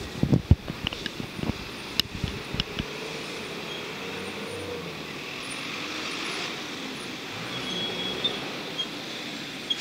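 City street traffic: passing vehicles in a steady hum. Several knocks and bumps in the first three seconds.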